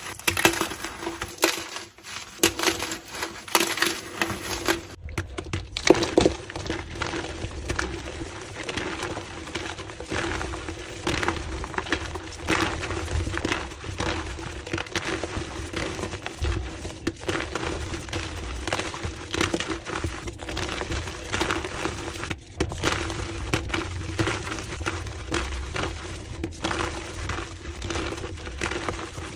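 Gym chalk blocks being crushed and crumbled, a dense run of crunches and crackles. About five seconds in, the crunching turns denser and more continuous, played back at double speed.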